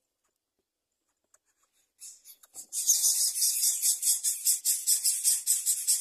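Greater coucal nestlings begging: a fast run of short, rasping hisses, several a second, that starts about three seconds in.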